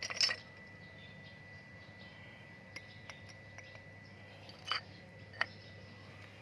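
Sharp clicks and clinks of hard objects: a quick loud cluster at the start, a couple of faint ticks, then two single sharp clicks near the end.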